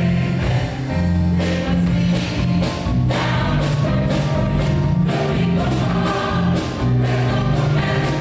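Large choir singing a show-tune medley with instrumental accompaniment.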